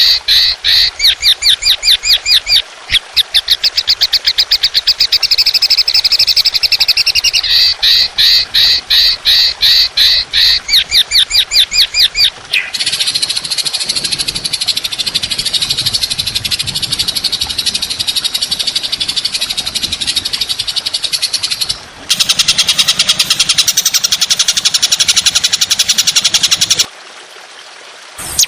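Recorded songbird calls: a long run of harsh, rapid-fire repeated notes, about four to five a second, changing about thirteen seconds in to a dense unbroken buzzing trill. The sound switches abruptly twice more and briefly drops out near the end, as between spliced recordings.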